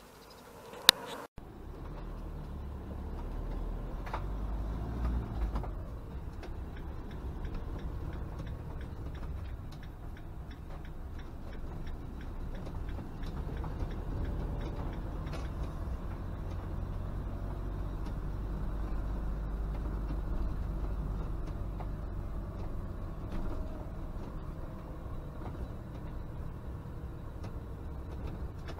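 Camper van driving, heard from inside the cab: a steady low engine and road rumble with light irregular clicks and rattles from the cab. There is one sharp click about a second in.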